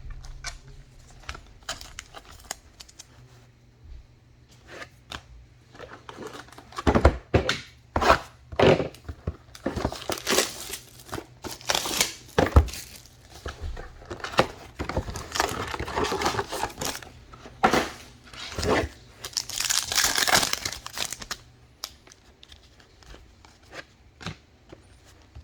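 Trading card pack wrappers being torn open and crinkled, with sharp clicks of cards being handled. The tearing and crinkling comes in a dense run of bursts through the middle and dies away near the end.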